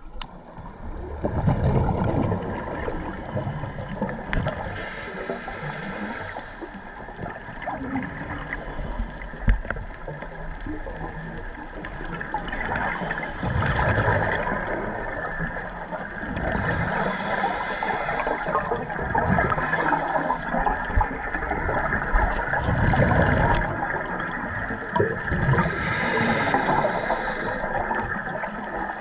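Scuba divers breathing through regulators underwater, heard through a camera housing: slow breath cycles of hissing and gurgling bubble bursts, repeating about every nine seconds.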